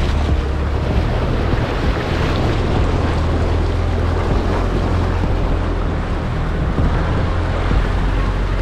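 Muddy river water rushing and splashing along the side of an off-road vehicle as it fords a shallow river, with wind buffeting the microphone and a steady low rumble underneath.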